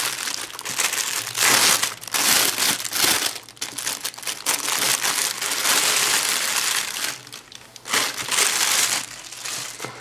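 Thin clear plastic packaging bag crinkling and rustling in irregular bursts as it is handled and pulled off a fabric item, with a couple of brief lulls.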